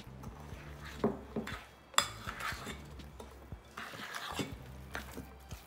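A utensil scraping and clinking against a glass mixing bowl as thick peanut butter cookie dough is stirred by hand, in irregular strokes with a sharp clink about two seconds in.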